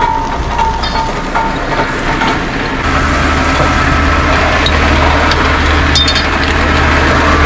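Crackling and snapping of burning vegetation, with a heavy engine's steady low drone cutting in about three seconds in.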